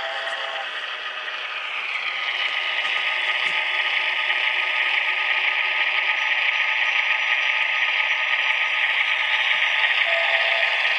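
HO-scale model diesel locomotive's sound decoder playing diesel sounds through its small onboard speaker, mixed with the whir of the model's motor and gear drive. A chord of held tones cuts off within the first second, then a steady hissing rush swells up about two seconds in and holds.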